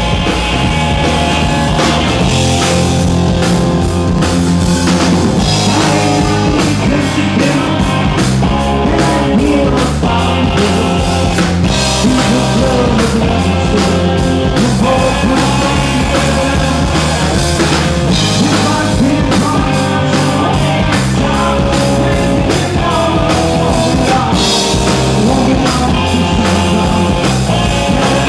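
Rock band playing live, with a drum kit keeping a regular beat under the guitars and bass.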